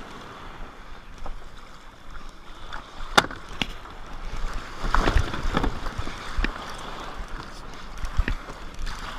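A kayak being launched into surf: water splashing and sloshing, with several sharp knocks, the loudest about three seconds in.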